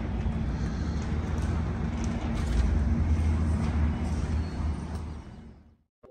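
Steady low rumble of vehicle and traffic noise outdoors, fading out near the end.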